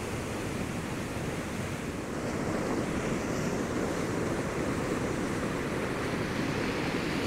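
Floodwater of the river Bode rushing over a submerged weir: a steady rush of water that gets a little louder about two seconds in.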